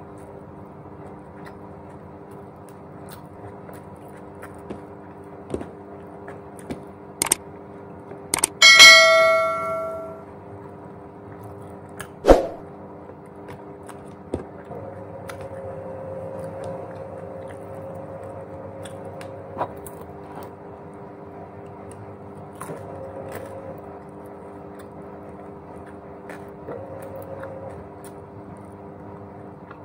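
A loud metallic clang about nine seconds in that rings on for about a second, with single sharp knocks just before it and a few seconds after, over a steady low hum.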